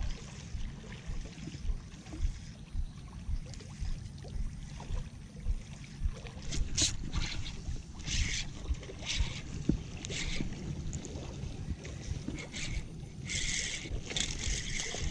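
Wind buffeting the microphone as a steady low rumble with irregular thumps. About halfway through, a run of short, sharp splashes begins as a fish thrashes at the water's surface; they come thickest near the end.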